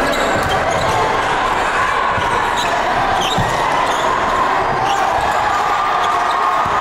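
Basketball game heard in a gymnasium: a steady murmur of crowd voices, with a few thuds of the basketball bouncing on the hardwood court.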